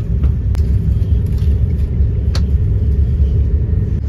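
Steady low rumble of a moving passenger train, heard from inside the carriage, with two brief sharp ticks.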